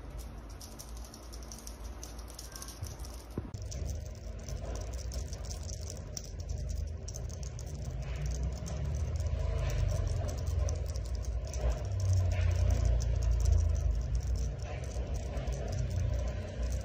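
Light rattling and rustling from a feather cat-wand toy being waved and batted by a kitten, over a steady low rumble that grows louder in the second half.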